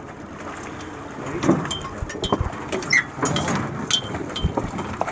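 Water sloshing against a boat hull with wind, and scattered knocks and clicks, as a hooked king salmon is worked alongside for netting.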